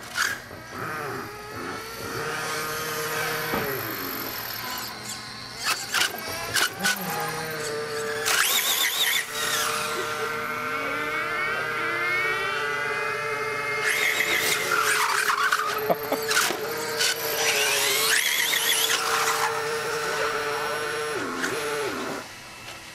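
Radio-controlled cars running on pavement: their motors give a steady high whine that rises and falls in pitch as they speed up and slow down. Several loud, high-pitched screeching bursts come through the middle and later part.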